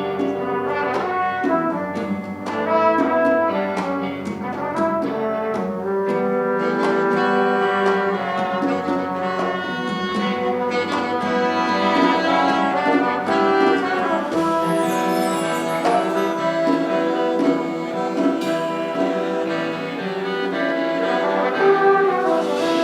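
A brass band (fanfare) playing, with trombones and trumpets carrying the melody over a steady beat of short percussive strokes.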